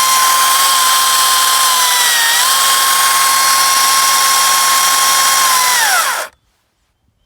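Makita 36-volt (twin 18-volt battery) cordless electric chainsaw running at full speed with a steady high whine, dipping briefly in pitch about two seconds in. Near the end the trigger is released and the motor winds down to a stop.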